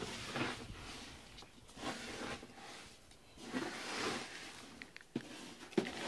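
Cat rubbing its face against a rubber grooming brush and biting at the bristles: soft scraping, rustling strokes in several bursts, with a couple of short clicks near the end.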